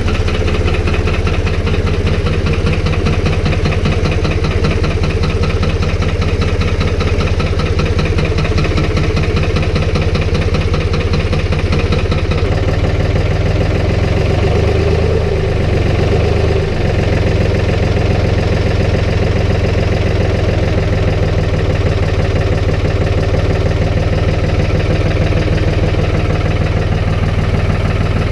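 Engine of a snow-plowing vehicle running steadily, with a shift in its sound about halfway through and a brief rise and fall in pitch soon after.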